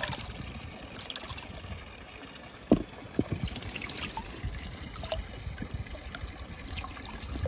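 Water trickling and pouring out of a tipped plastic container into a flooded paddy as small fish slide out with it, with one sharp thump a little under three seconds in.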